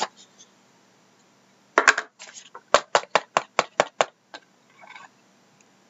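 Rigid cardboard trading-card box being opened and handled, its lid and inner box knocking and clicking: two knocks about two seconds in, then a quick run of about seven sharp clicks, about five a second.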